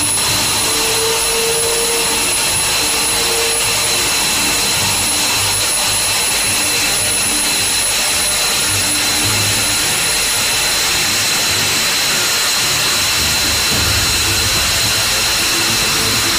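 F-22 Raptor's twin Pratt & Whitney F119 turbofan engines running while the jet stands on the ground. The sound is a loud, steady jet whine: several high-pitched whistling tones over a broad rushing noise.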